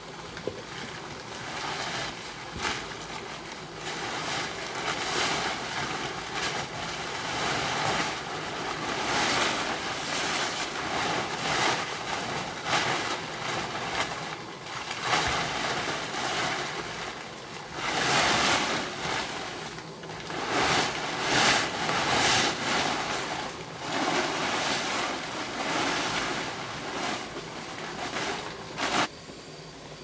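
A large plastic tarpaulin rustling and crackling as it is dragged and spread over a pole, coming in irregular swells of crinkling noise and stopping suddenly near the end.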